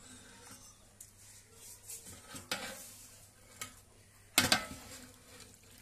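A utensil stirring pieces of meat in a metal cooking pot, scraping and clinking against the pot, with a few sharp knocks; the loudest are two close clanks about four and a half seconds in.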